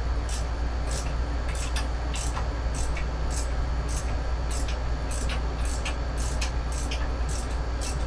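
Hand ratchet clicking evenly, about two clicks a second, as a bolt is run in by hand, over a steady low hum.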